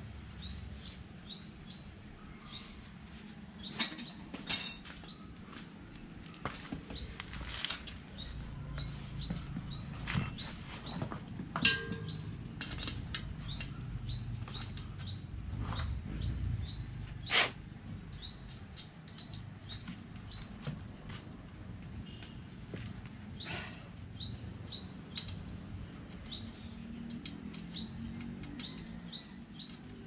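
A bird chirping over and over in runs of short, high chirps, about four a second, with occasional sharp clicks and knocks from handling the wheel and tools. The loudest knock comes about four and a half seconds in.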